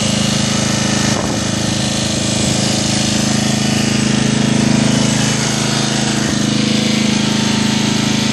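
Engine of a Murray riding lawn mower running steadily, with a brief knock about a second in.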